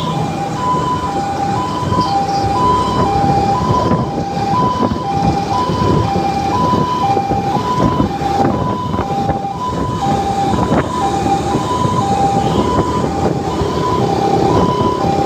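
Two-tone hi-lo emergency siren, switching evenly between a higher and a lower pitch about once a second, over the steady wind and engine noise of a motor scooter on the move.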